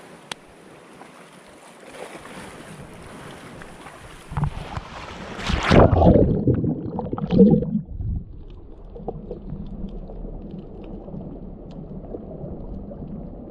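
Wind and sea-surface water noise on a camera held at the waterline, then loud splashing as it plunges underwater about four seconds in. After that the sound turns muffled: a low underwater rush with a few faint ticks.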